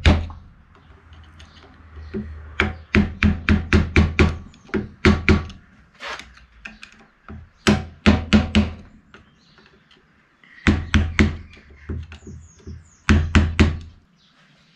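Hammer blows on a hand tool knocking back the lock tabs on the crown wheel bolts of a Mini A-series differential. The differential is clamped in a bench vice. The sharp metallic taps come in quick runs of several blows, with short pauses between the runs.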